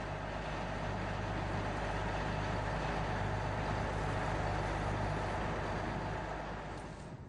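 Engine running steadily with a low hum, fading out just before the end.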